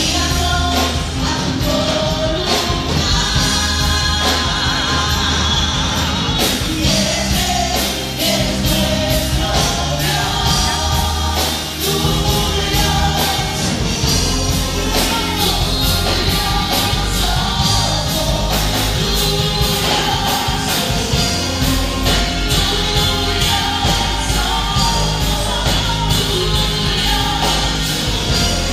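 Live congregational worship music: several women singing into microphones over a band with bass and a steady drum beat.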